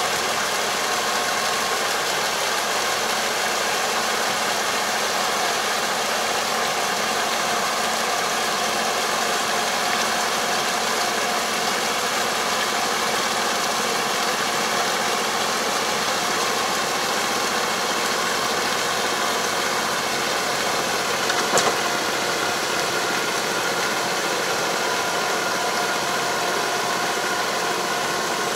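Tractor engine running steadily under load while pulling a 3 m Kobashi puddling harrow through a flooded rice paddy, over a steady hiss. One brief sharp knock about three-quarters of the way through.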